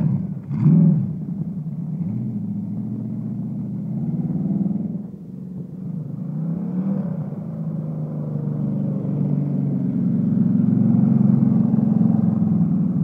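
305 V8 engine of a mini hot-rod ride-on, blipped once just under a second in, then running steadily as it drives, growing louder near the end as it comes closer.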